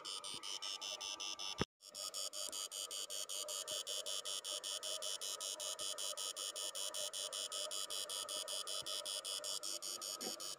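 Battery-powered electric fish stunner (Yangdong Y800) running: a steady high buzz that pulses about seven times a second. It is broken once by a click and a short dropout just under two seconds in.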